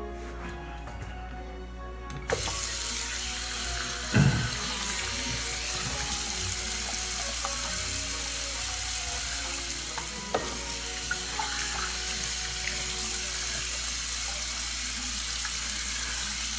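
Sink tap turned on about two seconds in, then water running steadily into the sink. There is a thump about four seconds in and a light knock near ten seconds.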